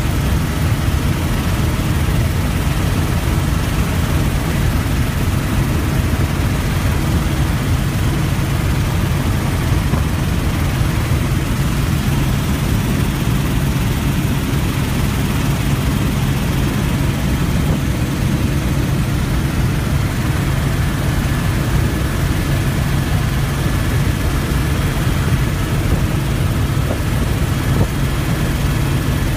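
Steady noise of a helicopter in flight, heard from aboard: rotor and engine running with a strong low hum under an even wash of noise.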